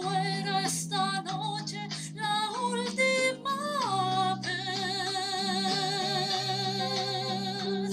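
A woman singing a wordless melody into a microphone over guitar accompaniment. After a few short stepped notes she holds one long note with vibrato from about four seconds in.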